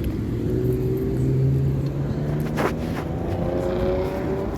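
A steady motor hum with several held tones, its higher tones rising slowly in pitch near the end, and a single short click about halfway through.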